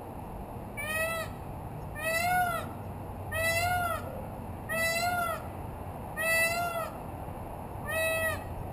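Peacock calling loudly six times in a row, each call under a second long and arching up then down in pitch, about one every second and a half.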